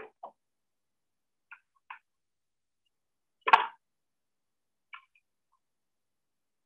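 Scattered small clicks and taps of a screwdriver and wire ends against an automatic door operator's terminal block and metal housing while a terminal is being wired, with one louder knock about three and a half seconds in.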